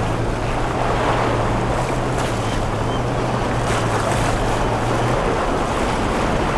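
Waves and surf washing against rocks, with a boat's outboard engine running as a steady low hum that drops away about five seconds in.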